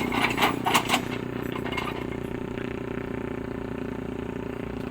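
Caterpillar 307E2 excavator's diesel engine running steadily, with several sharp knocks in the first second.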